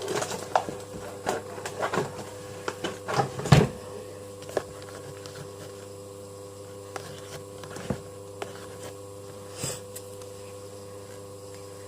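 Light knocks and clicks of things being handled on a table, several close together in the first few seconds with the loudest about three and a half seconds in, then a few scattered clicks over a steady electrical hum.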